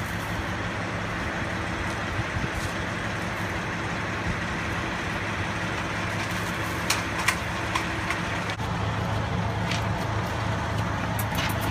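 A vehicle engine idling steadily with a low hum, with a few sharp clicks about seven seconds in and again near the end.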